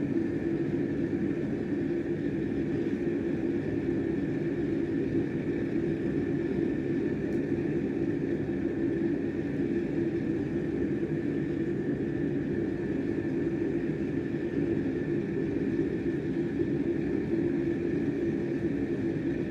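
Used-oil burner running at a steady roar, with an even low hum and a faint high whine that hold unchanged throughout.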